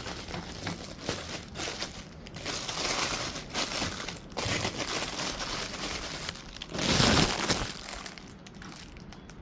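Plastic shipping bag crinkling and rustling as a cap is handled and pulled out of it, with a louder rustle about seven seconds in.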